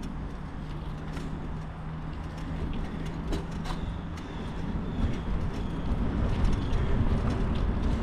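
A bicycle rolling along a paved path: a steady low rumble from the tyres and the ride, growing louder in the second half, with scattered light clicks and rattles.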